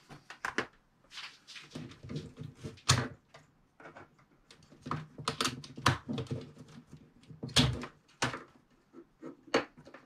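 Irregular clicks, taps and knocks with short rustles: tools and parts being handled and set down on a workbench.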